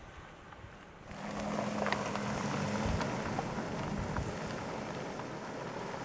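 Toyota Tacoma pickup truck driving on a dirt road: steady engine hum with tyre and road noise, coming in suddenly about a second in.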